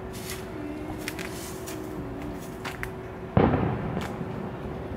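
An aerial firework shell bursting with one loud boom about three and a half seconds in, its rumble trailing off quickly, after a few fainter sharp pops.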